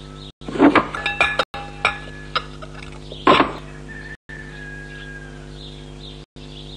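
Several quick clinks of china saucers being set under a wooden stool's legs, then a single louder clatter about three seconds in, over soft background music with a steady drone.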